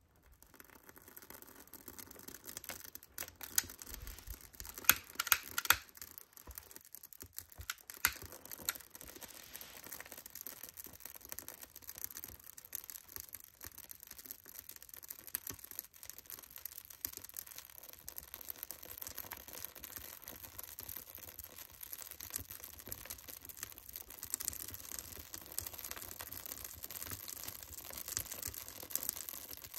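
Birch bark and split logs catching fire in a wood stove, crackling with a dense run of small clicks, with a few louder pops in the first several seconds.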